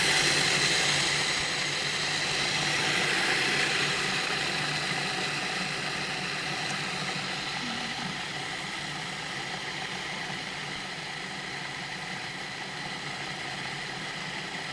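Food processor motor running continuously as it grinds raw sunflower seeds into a coarse meal, the sound growing gradually quieter over the run and stopping at the end.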